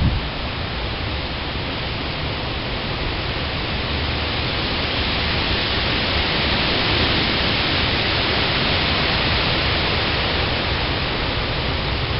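Steady heavy rain and wind of a hurricane-edge storm, a continuous hiss that swells a little in the middle. A short knock right at the start.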